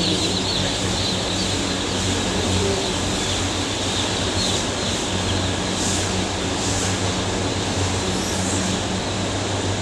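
Hatchery incubator machines running: a steady drone of fans and motors with a low, even hum and no change in level.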